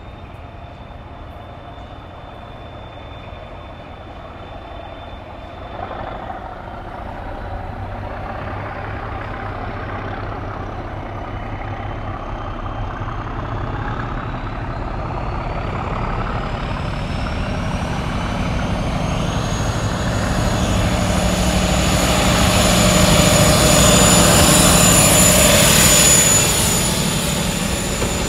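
Diesel engine of HST power car 41001 working hard as the train approaches and passes, with a low engine hum under a high whine that rises in pitch. The sound grows steadily louder to its loudest as the power car goes by, then drops off a couple of seconds before the end as the coaches pass.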